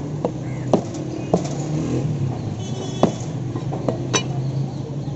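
Heavy meat cleaver chopping a raw chicken on a wooden stump block: about six sharp chops at irregular intervals, over a steady low traffic hum.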